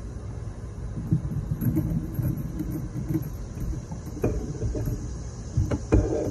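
Metal chains and hangers of a wooden swing set clinking and creaking as a saucer swing is swung, with sharper knocks and short squeaks from about four seconds in, over a steady low rumble.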